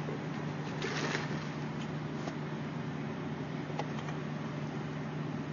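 Faint rustling and handling noise with a few soft ticks, the clearest about a second in, over a steady low hum.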